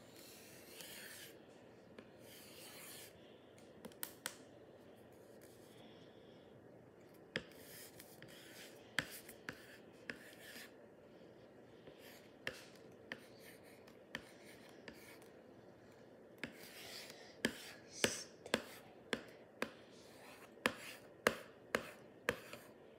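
Drawing by hand on paper at a table: short scratchy strokes with scattered sharp taps and clicks, which come fast and close together near the end.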